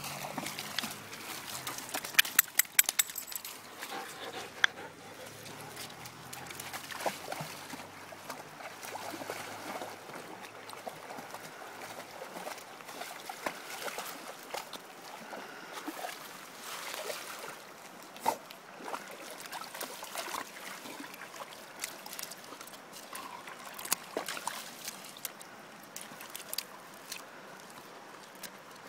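A dog wading through shallow stream water, its legs splashing and sloshing as it walks, with a quick run of sharp clicks about two seconds in and scattered smaller splashes after.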